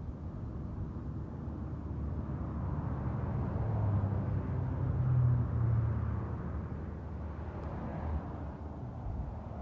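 Low engine hum of a passing motor vehicle, swelling about four to five seconds in and then fading, over an outdoor rumble.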